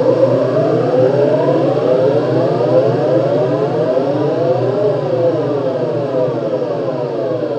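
Synthesized eerie sci-fi space ambience: many layered electronic tones slowly gliding up and down past one another, like wailing sirens, over a steady low hum. It fades a little toward the end.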